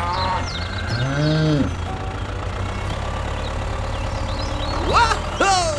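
A cow moos twice, first in a low arching call, then in a higher call that rises sharply and falls away, over a steady low engine hum.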